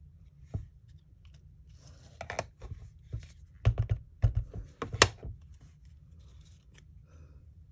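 Sharp plastic clicks and knocks of stamping gear handled on a craft table: a clear acrylic stamp block lifted and set down and a plastic ink pad case picked up and snapped shut. One click comes about half a second in, then a quick flurry of taps from about two to five seconds in, with a few faint ticks near the end.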